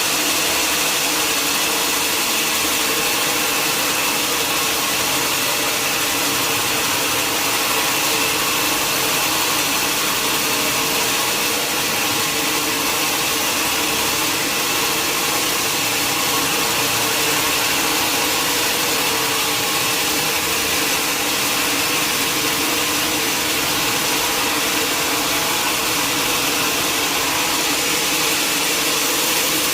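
Sawmill machinery running: a steady, loud mechanical whine and hiss with a few constant tones, unchanging throughout.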